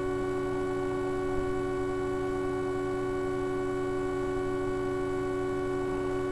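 A steady hum of several held tones at once, unchanging in pitch and level.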